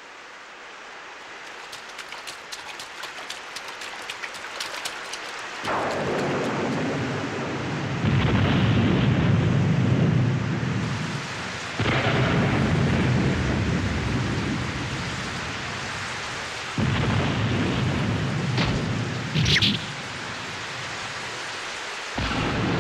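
Storm sound effect: steady rain, with heavy thunder rumbling in from about six seconds in and swelling again several times. Near the end there is a short high tone.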